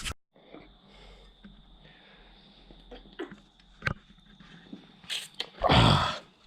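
Light clicks and taps of work on a partly stripped manual gearbox over a faint steady hum. A short, loud, breathy rush of noise comes near the end.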